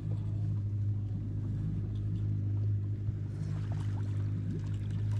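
Boat motor running at a steady speed, a low, even hum.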